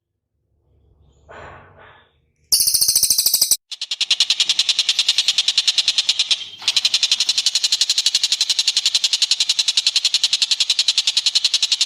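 Recorded bird call played as a masteran: a loud, very fast, even trill that starts about two and a half seconds in and runs on, breaking off briefly twice.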